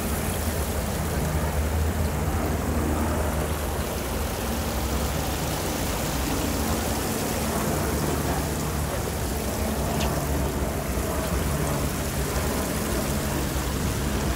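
Steady city street noise: a low rumble of traffic and engines under an even hiss, holding a constant level.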